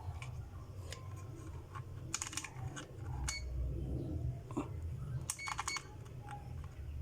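Plastic clicking of a digital clamp meter being handled, its selector dial and buttons worked, in a few quick clusters of clicks about two seconds in, past three seconds and past five seconds, over a low steady hum.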